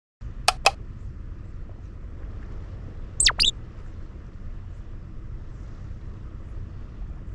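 Steady low wind rumble on the microphone, cut in abruptly. Two pairs of short, sharp squeaky chirps, each falling in pitch, come about half a second in and again a little after three seconds.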